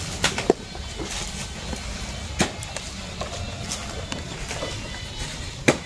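Handling noise: a few scattered sharp knocks and clicks over a steady background hiss.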